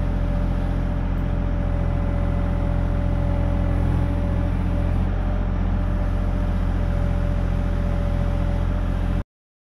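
Compact excavator's diesel engine running steadily under load as the boom and bucket dig, with a steady high tone over the low rumble. Cuts off suddenly near the end.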